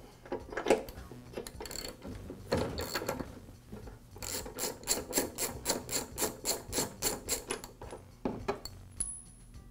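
Socket ratchet wrench clicking as an old spark plug is unscrewed from a small engine. Uneven clicks come first, then from about four seconds in a steady run of about five clicks a second, which stops a couple of seconds before the end.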